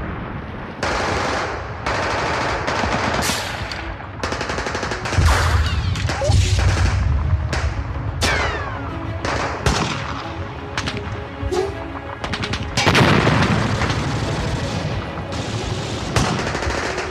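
Recorded war sound effects: rapid machine-gun bursts and single gunshots throughout, with deep booms about five to seven seconds in and falling whistles around eight seconds in.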